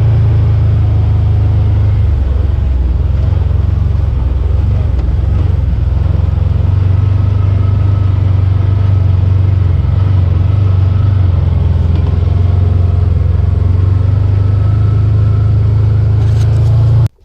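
Motor vehicle engine running steadily with a heavy low rumble, stopping abruptly just before the end.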